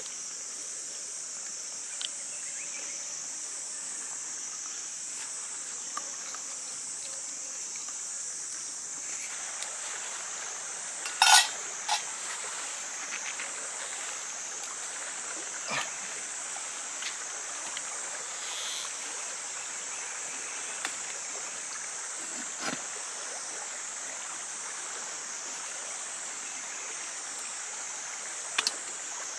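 Steady high-pitched drone of jungle insects, with scattered sharp clicks and a short, louder rattle about eleven seconds in.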